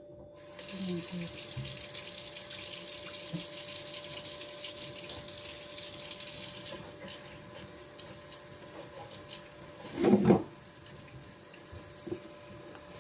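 Water running from a tap, a steady hiss for about six seconds that then drops to a weaker flow. One brief loud knock comes about ten seconds in.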